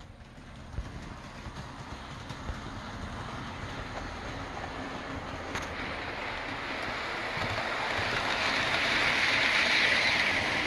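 OO gauge model train running on the track, its motor and wheels making a steady rushing hum that grows louder as it comes closer, with a few faint clicks.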